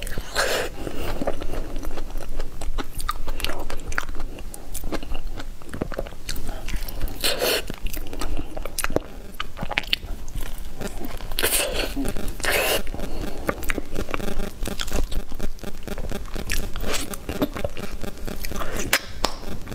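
Close-miked eating of soft durian flesh: biting and chewing with many small wet mouth clicks and smacks, and a few louder bites spread through.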